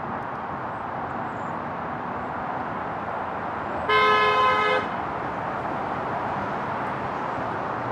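A passing car's horn honks once, a single blast just under a second long about four seconds in, over a steady hiss of road noise.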